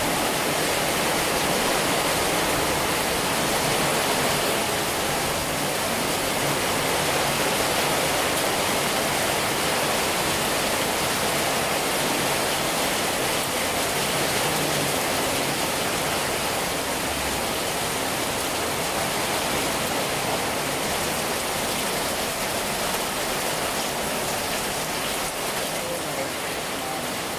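Heavy rain pouring down in a sudden downpour, a dense, even hiss of rain on the road and ground, easing slightly near the end.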